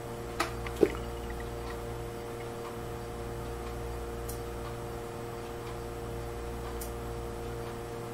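Two computer keyboard key clicks less than a second in, the second louder, then a few faint clicks over a steady electrical hum.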